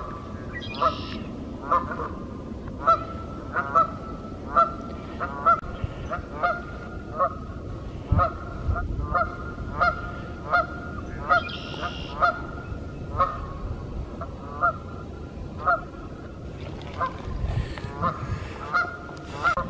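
Canada geese honking, a long series of short, repeated honks coming a little more than once a second.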